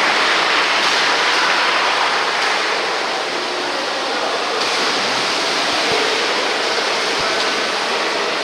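Steady churning and splashing of water from water polo players swimming and fighting for the ball in the pool.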